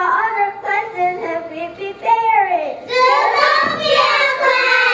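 Young children singing; about three seconds in, several voices join on a long held phrase.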